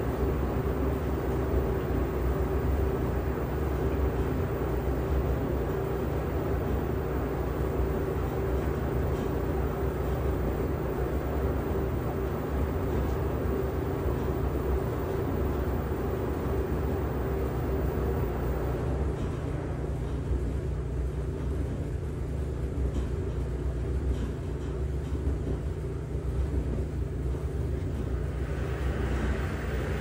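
LG washing machine running a cycle: a steady low rumble with a constant motor hum.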